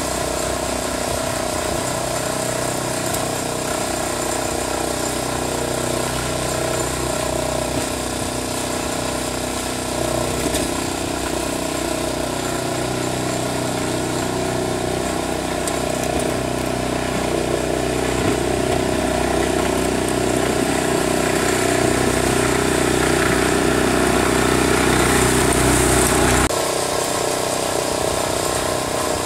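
Engine of a Wolf-Garten ride-on garden tractor running steadily as it pushes snow with a front blade. It grows louder in the second half and drops off abruptly near the end.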